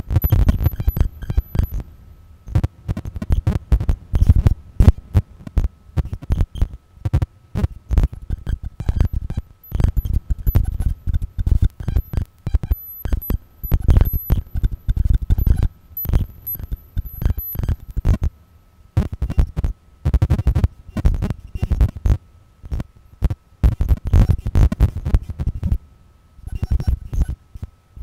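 Live algorithmic electronic sound, generated in real time from a fractal system rather than from samples or conventional synthesis. Dense, irregular clusters of deep thuds and crackling clicks come in bursts broken by short gaps, over a faint steady high tone.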